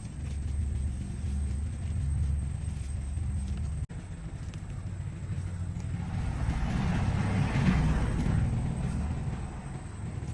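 A motor vehicle's engine running with a low, steady rumble; in the second half a rushing noise swells up, peaks and fades over about three seconds.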